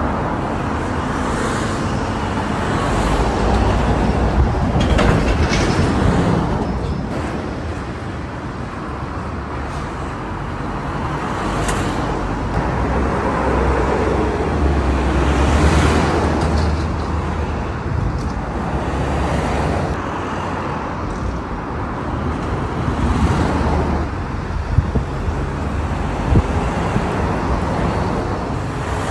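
Heavy road traffic passing close by: trucks and cars driving past with diesel engines and tyres in a continuous rumble that swells and fades as each vehicle goes by. There are a couple of short, sharp clicks near the end.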